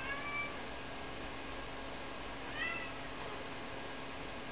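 Ragdoll cat meowing twice: one call ends about half a second in, and a short one rising in pitch comes about two and a half seconds in. The cat is calling for her owner, who is out of sight.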